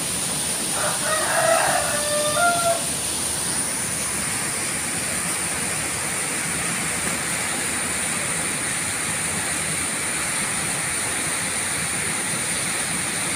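A rooster crows once, starting about a second in and lasting about two seconds, ending on a held note. Beneath it is a steady high-pitched background hiss.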